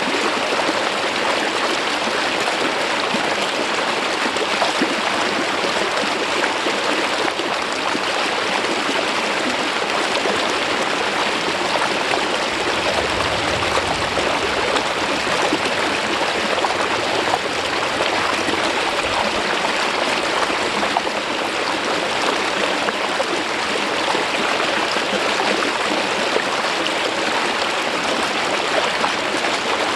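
Mountain stream water flowing smoothly down over a rock face: a steady, even sound of running water.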